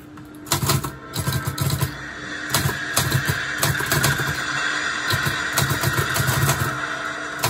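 Olivetti Lettera 25 portable manual typewriter being typed on quickly: a fast, irregular clatter of typebars striking the platen, each with a low thump. A steady background tone joins in about two and a half seconds in.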